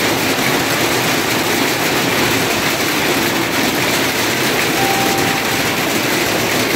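A heavy hailstorm: a loud, steady, dense clatter of countless hailstones striking the ground and nearby surfaces.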